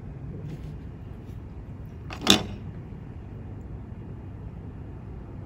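A single brief, sharp handling noise about two seconds in, over a faint steady room background.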